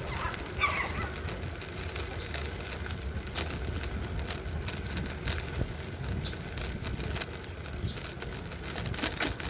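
Riding noise while travelling along a wet, patched road: a low wind rumble on the microphone with frequent small clicks and rattles. A short chirp comes about half a second in.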